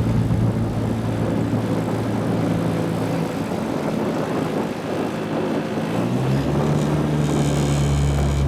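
Small boat's outboard motor running, its pitch shifting about three seconds in and again a little after six seconds, over a steady rushing hiss.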